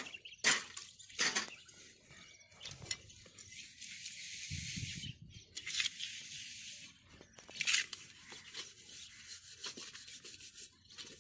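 Cooking pots being scrubbed by hand: rubbing and scouring strokes that come and go, with a few sharp clinks.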